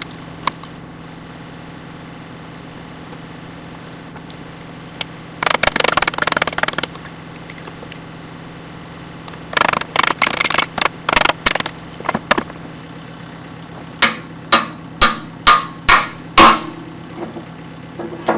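CAT 430D backhoe's diesel engine idling steadily while metal clanks and scrapes as a bucket pin is worked out and fitted. Near the end come five sharp hammer blows about half a second apart on the pin.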